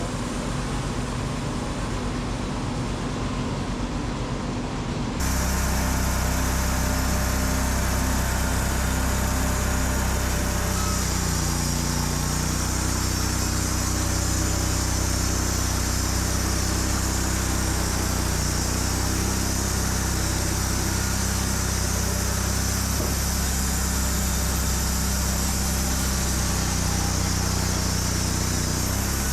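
Wood-Mizer LT35 band sawmill running with a steady engine drone. About five seconds in it becomes suddenly louder and harsher, with a strong high hiss added, and then holds steady.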